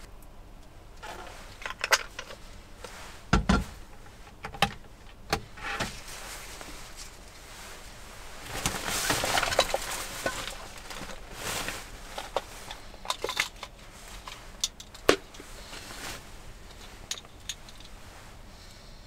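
Scattered knocks and clicks of small toiletry items being handled and set down on a wooden desk, with a stretch of rustling for a couple of seconds about eight seconds in.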